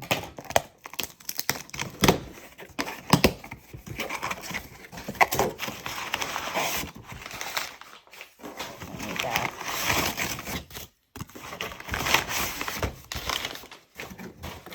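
Packaging being torn open and crinkled by hand: irregular rustles, crackles and sharp clicks, pausing briefly a couple of times.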